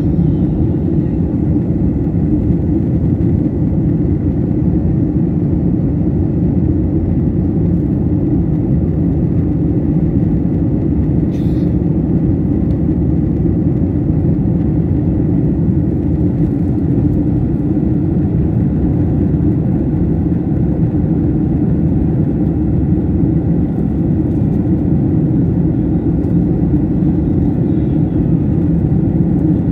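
Steady, even rumble of jet engines and airflow heard inside a jet airliner's passenger cabin in flight. A faint brief click about eleven seconds in.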